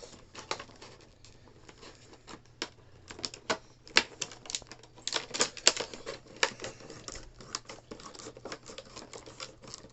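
Packaging being cut open by hand: irregular sharp clicks and crackles, busiest in the middle of the stretch.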